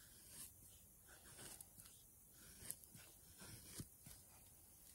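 Faint scraping strokes of a Reiff Knives Circadian blade shaving thin curls down a wooden stick to make a feather stick, with a light tick now and then.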